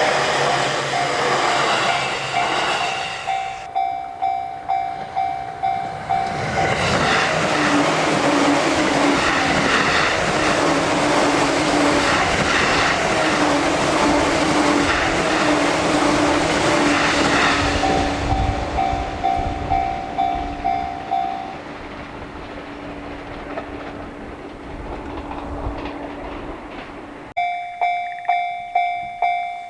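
Japanese level-crossing warning bell (the 'kan-kan') ringing in regular strokes while a train passes over the crossing, its rail noise loud enough to drown the bell for stretches. Near the end the train noise stops abruptly and the bell rings on its own, clear and evenly spaced.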